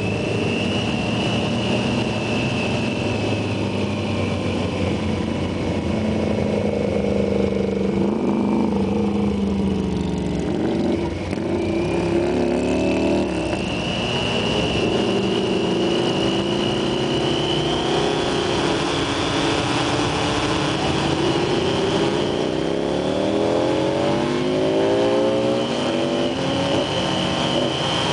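Onboard sound of a 2003 Yamaha FJR1300's inline-four engine running at parade pace over a steady rush of wind, its pitch rising twice as it accelerates.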